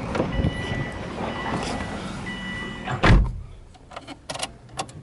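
A car's electronic warning tone beeps three times while the Subaru Impreza WRX STi's driver's door stands open, then the door is shut with a loud thud about three seconds in. A few light clicks follow from inside the cabin.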